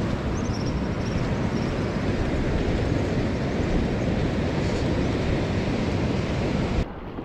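Steady rumbling noise of surf and wind on the beach, with a few faint high bird chirps about half a second to a second in; it stops abruptly near the end.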